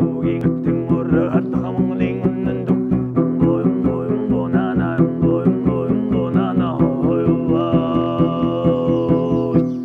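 String-instrument music with a quick, steady galloping beat of about four strokes a second and a gliding melody over it, settling onto a long held chord near the end.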